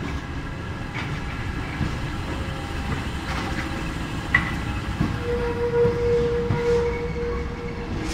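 MF67 Paris metro train moving slowly in reverse, with a steady low rumble and scattered clicks of wheels on rail. A sharp click comes about four and a half seconds in, and a steady tone is held from about five seconds in for nearly three seconds.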